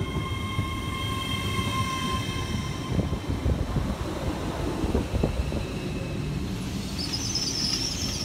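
LNER Azuma train pulling into the platform and slowing to a stop: a high whine from the train fades out about two seconds in over a low rumble with a few clicks from the wheels, and a high squeal starts near the end as it brakes.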